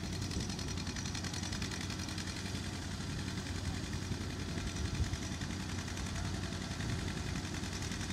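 Antique tractor engine idling steadily, with a low, even note.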